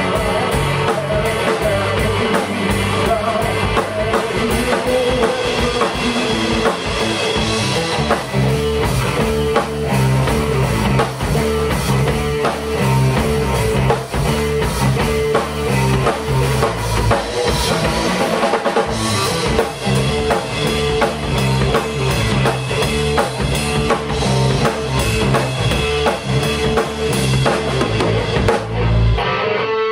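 A three-piece rock band playing: electric guitar, electric bass and a full drum kit with a steady kick-drum beat.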